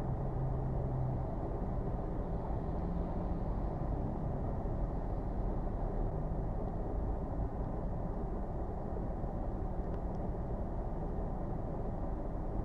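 Steady low rumble of a car on a snow-covered road: engine and tyre noise with no sharp events.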